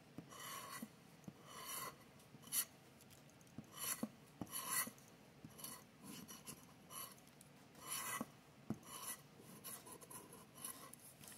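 Scratcher tool scraping the coating off a lottery scratch-off ticket in many short, irregularly spaced strokes.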